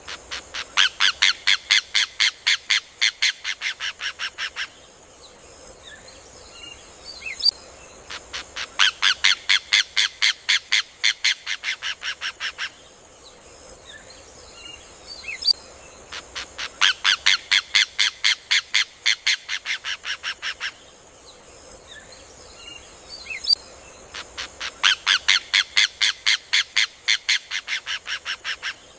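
Rufous hornero (João de Barro) singing: four loud bouts of rapid, sharp, ringing notes, each about four seconds long and fading toward its end, coming roughly every eight seconds. A steady faint high hiss runs underneath.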